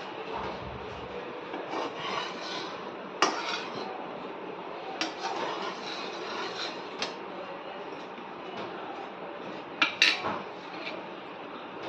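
Metal spatula stirring and scraping sugar syrup boiling in a steel kadhai, over a steady bubbling hiss. Sharp clinks of metal on the pan come now and then, the loudest a quick cluster about ten seconds in.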